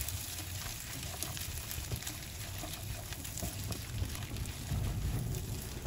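Bulgur and green lentils being stirred with a silicone spatula in a pan as they toast over low heat: a soft, grainy scraping and light sizzle with scattered faint ticks, over a low rumble that swells a little near the end.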